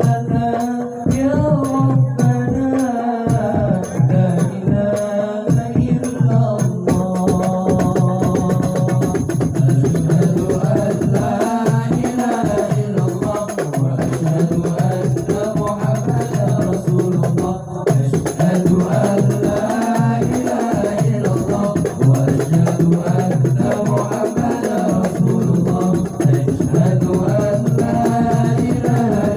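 Sholawat, Islamic devotional song, sung to a steady beat of hand percussion with jingles.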